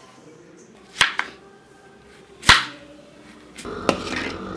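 Two sharp swishes about a second and a half apart, then, from about three and a half seconds in, a spatula stirring a thick beetroot paste in a kadai, scraping the pan with a sharp knock against its side.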